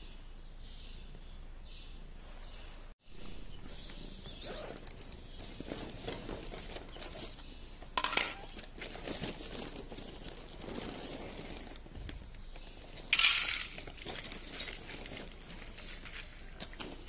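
Crinkling and rustling of handled cat food, a sharp clink as a ceramic plate is set down on paving tiles about eight seconds in, and a short loud rustle as food is tipped onto the plate a few seconds later. Near the end, a cat eating from the plate.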